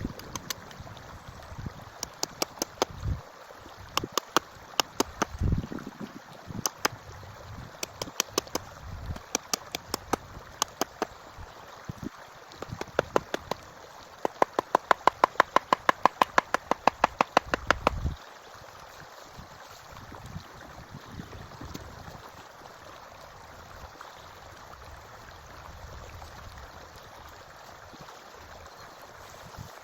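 Sharp hammer strikes on wood, in irregular short groups and then a fast, even run of about four blows a second that stops after about eighteen seconds. A forest stream rushes steadily underneath.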